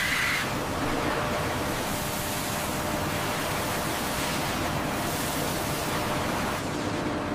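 Steady, even hissing noise of a metal-cutting machine at work, with a faint steady hum underneath. A faint high tone drops out about half a second in.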